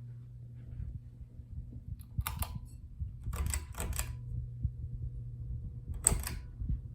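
Hampton Bay Minuet III ceiling fan running with a steady low hum, with several sharp clicks and rattles over it: a cluster about two seconds in, another around three and a half to four seconds, and the loudest about six seconds in.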